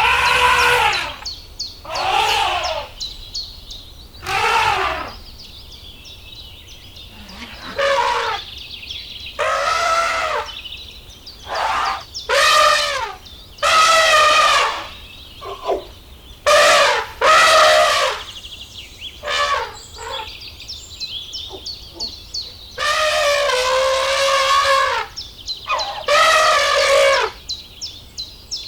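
Repeated drawn-out animal calls, each about a second long with a rising and falling pitch, over faint high chirping of small birds.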